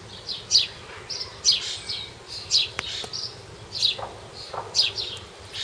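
Small birds chirping: short, high chirps repeated every half second or so, with one faint click about midway.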